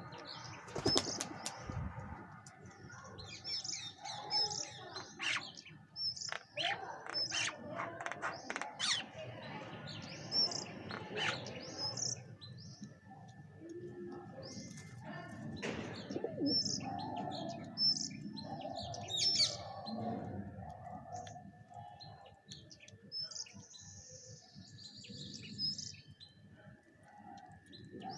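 A flock of bank mynas and pigeons at food: repeated short high chirps, wings flapping in sharp bursts mostly in the first half, and low pigeon coos.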